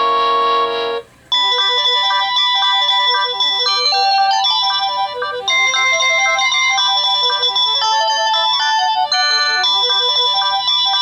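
A Panasonic KX-TG1033S cordless phone handset plays its built-in ringtones one after another. A held chord cuts off about a second in, and after a short gap the next ringtone starts: a quick electronic melody of short notes that repeats.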